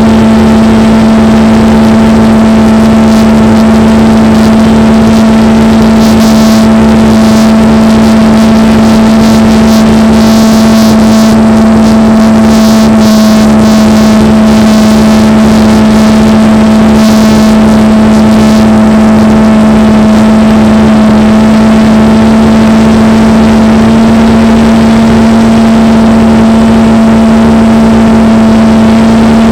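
RC plane's motor and propeller running at a steady cruise, heard loud and close from the plane's onboard camera: a continuous drone that holds one pitch. Bursts of hiss come and go in the middle stretch.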